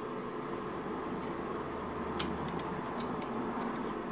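Steady low room hum, with a few light plastic clicks and taps from about two seconds in as a speedometer's plastic light diffuser is handled and fitted onto the instrument cluster housing.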